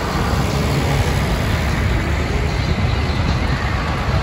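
Large farm tractors' diesel engines running steadily as they drive slowly past one after another, a dense low rumble with no breaks.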